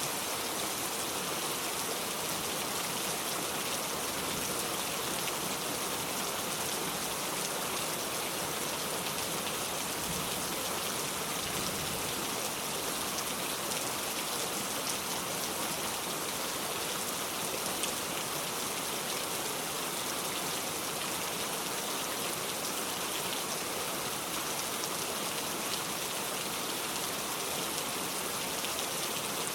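Heavy rain falling steadily: a dense, even hiss with a fine patter of drops.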